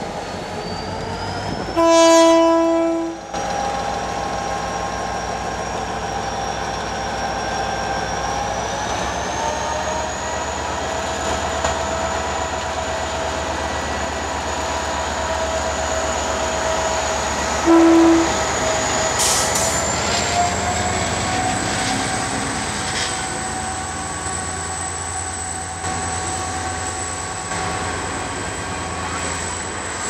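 EMD GT22 diesel-electric locomotive pulling away with a passenger train: a long horn blast about two seconds in and a short one around the middle, over the diesel engine running under power with a whine that rises in pitch as it accelerates. Near the end the coaches roll past with a clickety-clack.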